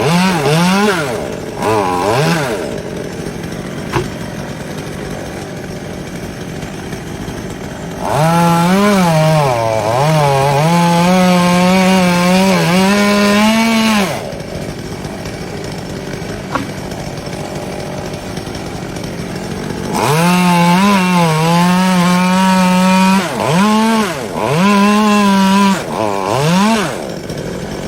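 Two-stroke chainsaw cutting wood: it revs to full throttle for about six seconds, its pitch sagging and recovering as it bites into the cut, drops back to idle, then runs at full throttle again for another long stretch. There are a few short throttle blips near the start.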